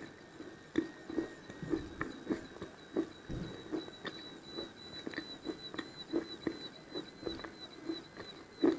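Close-miked chewing of a mouthful of edible chalk: soft, moist chews and mouth clicks, about two a second.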